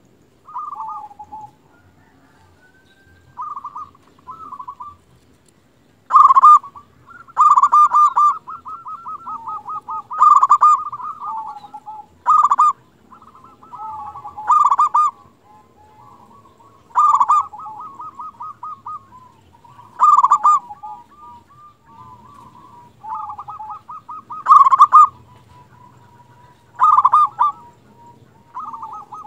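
Zebra dove (perkutut) cooing: repeated phrases of rapid, trilling coo notes around one pitch, each phrase with a louder accented note, coming every two to three seconds. The phrases are softer and sparser for the first few seconds.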